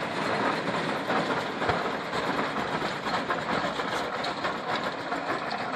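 1918 Case 20-40 tractor's two-cylinder engine running as the tractor drives off, with a steady mechanical clatter from its gearing and steel lugged wheels, growing slightly fainter as it moves away.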